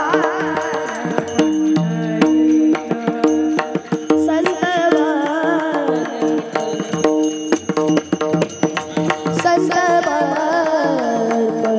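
Varkari bhajan music: held harmonium-like drone notes and a wavering, ornamented melody line over frequent hand-drum strokes and percussion.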